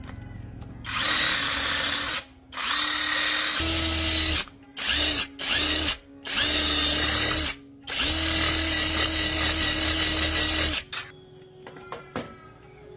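A handheld power tool run in six bursts of a few seconds each, its motor whining up at every start, with a loud cutting or grinding hiss on the work.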